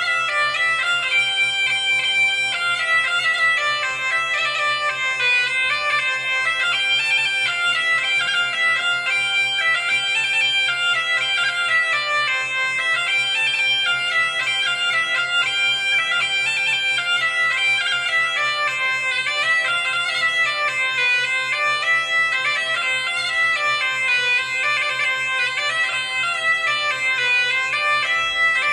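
A bagpipe playing a quick-moving melody over a steady, unbroken drone.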